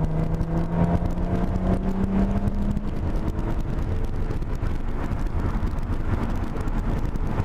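2008 Audi TT's 3.2 VR6 engine, with its exhaust resonator replaced by a straight pipe, pulling under acceleration, heard from inside the cabin: its note rises for about three seconds, then falls away into a steady rumble of road noise.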